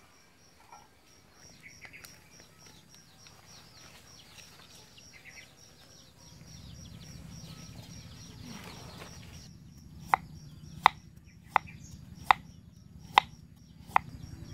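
Knife chopping a vegetable on a wooden cutting board: six sharp chops about 0.7 s apart in the last few seconds. Before the chopping, insects chirp faintly.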